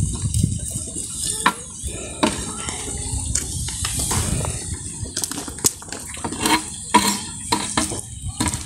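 Long wooden sticks working wool in a large metal pot of hot dye bath: liquid sloshing, with about eight sharp knocks of wood against the pot, most of them in the second half.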